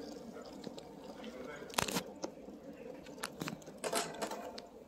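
Busy airport baggage-hall background murmur with several sharp clicks and knocks, the loudest a little before two seconds in.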